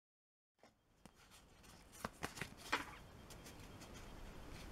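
Dead silence for a moment, then faint handling of Pokémon trading cards: a few soft clicks and rustles about two seconds in, over low room hiss.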